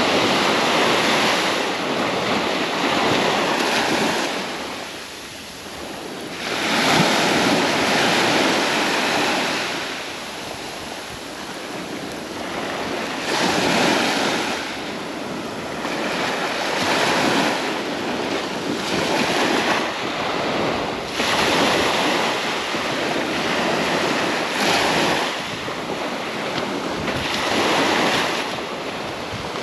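Small waves breaking and washing up a sand beach at the water's edge. The surf swells and eases every few seconds, with wind buffeting the microphone.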